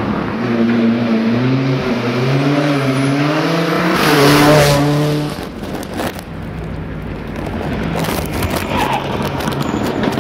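Fiat 124 Abarth rally car's engine accelerating hard, rising in pitch through several gear changes and loudest about four to five seconds in. The sound then drops abruptly. A quieter, more distant run of the engine follows, with sharp cracks and pops near the end.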